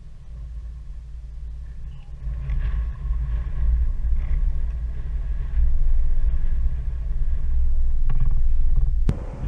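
Wind buffeting the microphone: a low rumble that swells and falls in gusts, with faint distant voices now and then. A sharp click near the end.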